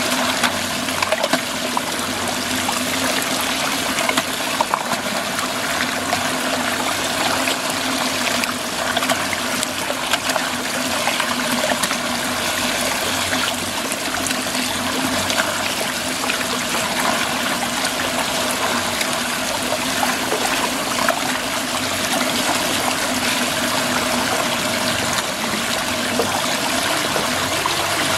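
Muddy water swirling into a whirlpool and draining down its central hole: a steady rush of water with scattered small splashes, over a faint steady hum.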